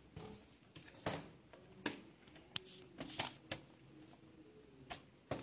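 Handling noise as a plastic laptop is turned over and its lid opened on a table: a scatter of irregular clicks and knocks, with a short scrape in the middle.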